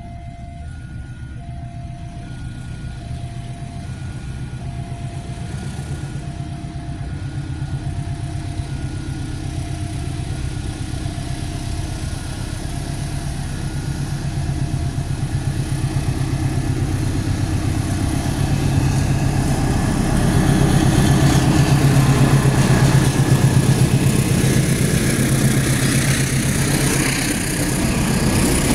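A KAI diesel-electric locomotive approaches and passes close by, its engine hum growing steadily louder and loudest about two-thirds of the way in. Near the end come the rolling wheels of the passenger coaches it hauls. In the first part a level-crossing warning signal beeps about once a second.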